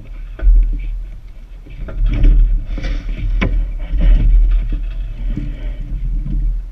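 Knocks, clunks and scrapes of two people climbing aboard and moving about in a small sailboat's hull at the dock, over a heavy low rumble that swells in several surges, with one sharp knock about three and a half seconds in.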